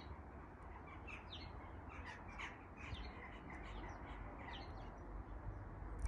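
Garden birds calling: scattered short chirps, several a second, over a steady low rumble.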